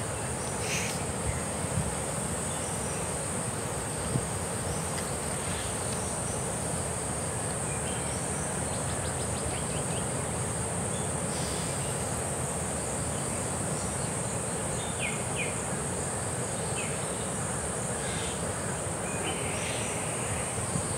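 Steady, high-pitched drone of an insect chorus in forest, with a few faint short chirps scattered through it.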